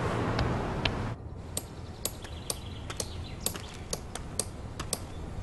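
Street traffic noise for about the first second, then a hammer tapping lightly and quickly on a metal frame set in a block wall, about three strikes a second.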